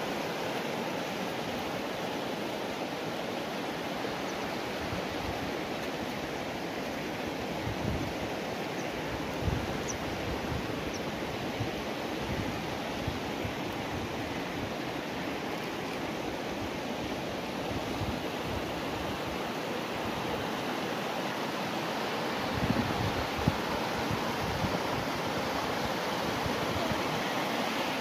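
Steady rush of a shallow mountain stream running over stones, with a few brief low thumps a little over two-thirds of the way through.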